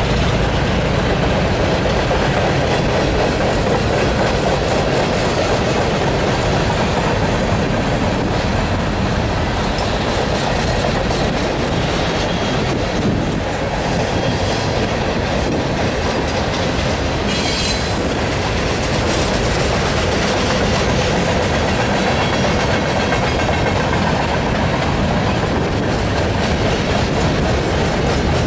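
Freight cars of a passing freight train rolling by close up, a steady loud rumble and clatter of steel wheels on rail. A brief high-pitched wheel squeal cuts through a little past the middle.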